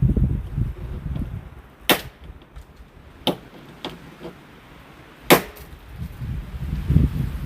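Sharp plastic snaps as push-pin clips, brittle in the cold, are pried out: three crisp cracks a second or two apart, the last the loudest, with a fainter click between. Wind rumbles on the microphone at the start and near the end.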